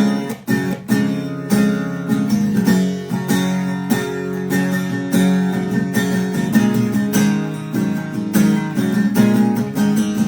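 Acoustic guitar strumming chords in a steady rhythm, an instrumental passage of an emo rock song with no vocals.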